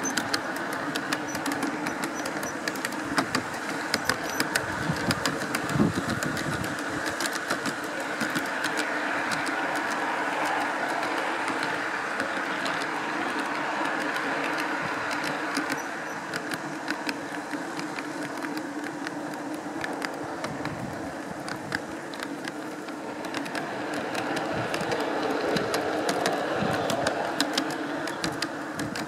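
Garden railway train running along its track, picked up close from a camera riding on one of the wagons: a steady running noise from the wheels and running gear, with frequent sharp clicks and rattles throughout.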